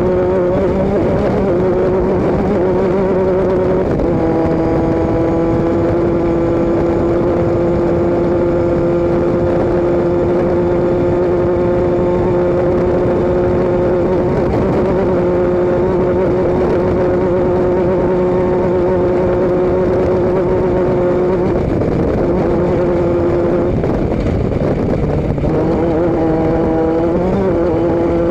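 Motor vehicle driving at a steady speed: a continuous engine and exhaust drone over road and wind rush. The drone's pitch steps down slightly about four seconds in and wavers up and down near the end.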